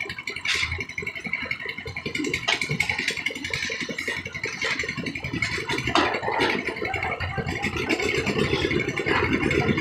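Engine of a concrete mixer machine running with a steady pulsing beat, with a few sharp knocks over it.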